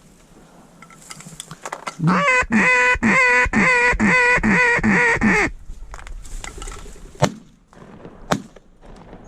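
A duck call blown in a quick, even series of about nine loud quacks, roughly two and a half a second, calling to incoming ducks. Then two sharp shotgun shots about a second apart near the end.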